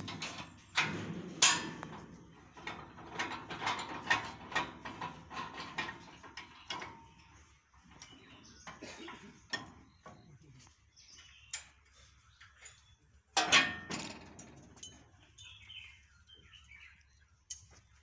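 Metal clanking, rattling and clicking from a steel trailer frame and its caster-wheel jack stand being worked by hand, with a ringing, ratchet-like run of clicks early on and one louder clank a little past the middle.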